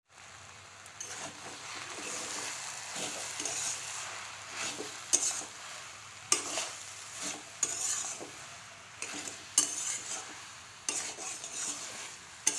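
A spatula stirring and scraping wilted taro leaves around a kadai over a light sizzle of frying oil. It clacks sharply against the pan several times.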